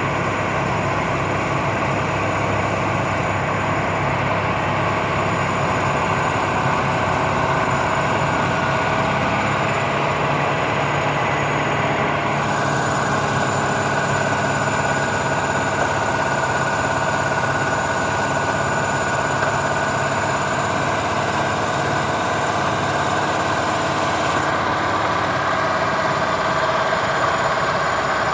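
Milling machine running steadily, its motor and spindle giving a continuous mechanical drone with a few steady whining tones. The higher part of the sound shifts abruptly about twelve seconds in and again near the end.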